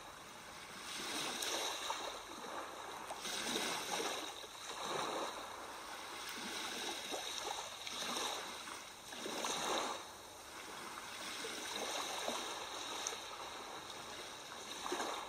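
Background sea-and-water recording: a steady wash of water that swells and fades every couple of seconds, like waves.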